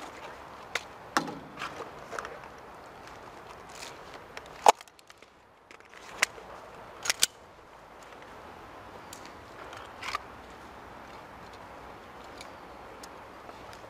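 Airsoft guns firing single shots: a scattering of sharp pops, several in the first few seconds, the loudest about five seconds in, a quick pair near the middle and one more later.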